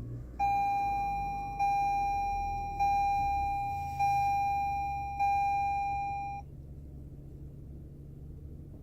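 2018 Toyota Camry's dashboard warning chime sounding five times, about a second and a bit apart, each tone fading away. Beneath it, the low steady hum of the just-started engine idling, heard inside the cabin.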